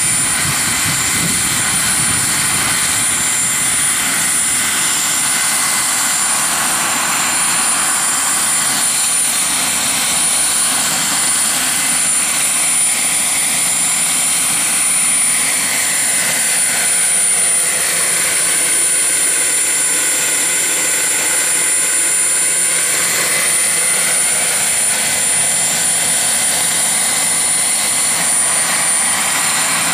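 Turbine-powered radio-controlled scale model Mil Mi-24D Hind helicopter hovering low: a steady high turbine whine over the rushing of the rotor. Some of its pitch sags and climbs back a little past the middle.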